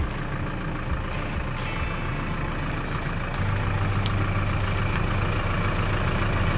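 Pickup truck engine running as the truck backs slowly toward the microphone, a steady low hum that grows louder about three and a half seconds in.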